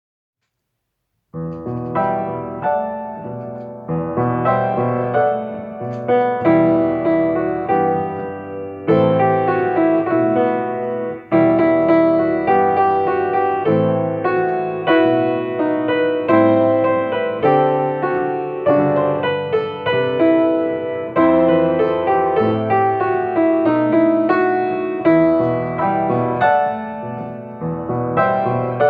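Solo piano playing a slow, gentle instrumental introduction, starting about a second in, with notes and chords struck and left to ring.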